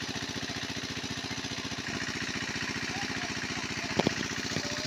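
A small engine running steadily with a fast, even pulse, and a single sharp knock about four seconds in.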